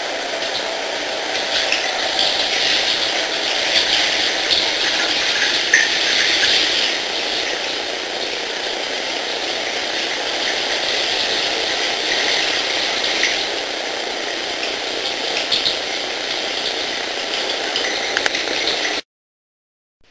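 Shower spray running steadily onto a dog and the tiled floor, a constant hiss with a few small splashes. It cuts off suddenly near the end.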